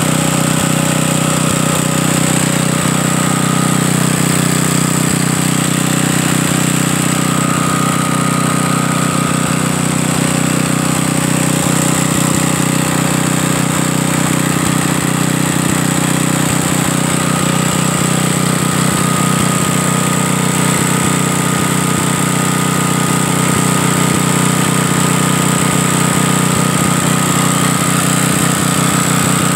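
Wisconsin Robin single-cylinder air-cooled four-stroke engine running steadily at an even speed, with no surging. It has a freshly rebuilt carburettor and a new gas tank.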